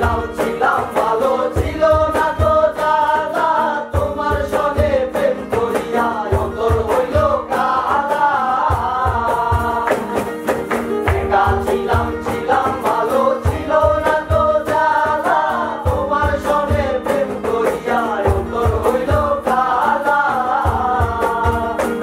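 A group of young men singing a Bengali song in unison to strummed acoustic guitar and ukulele, with a hand drum beating a steady rhythm underneath.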